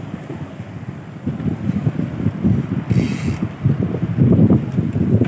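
Wind buffeting the microphone of a moving bicycle rider, a rough low rumble and flutter that grows louder a little over a second in, with a brief hiss near the middle.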